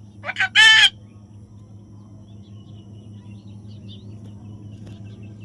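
A parrot calling once: two short rising notes, then a longer, wavering, harsh note. It is followed by faint high chirps over a steady low hum.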